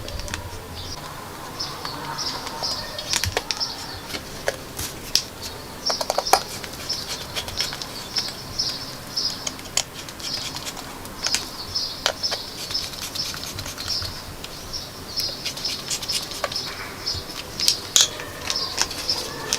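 A small bird chirping over and over in short rhythmic runs, with scattered light clicks and knocks of things being handled.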